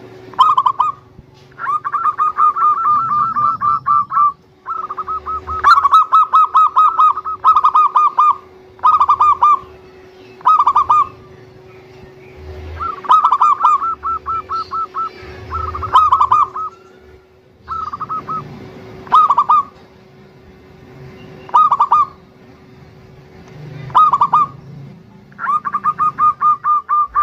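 Zebra dove (perkutut) singing: a dozen or so bursts of rapid, staccato trilled cooing notes, each from half a second to about two seconds long, with short pauses between. A faint steady hum runs underneath.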